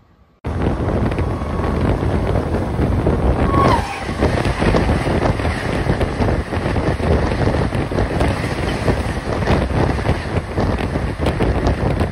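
Vande Bharat Express train passing close alongside at high speed: a loud, steady rush of wind and wheel-on-rail rumble with wind buffeting the microphone. It starts abruptly about half a second in, and a short falling tone is heard near four seconds in.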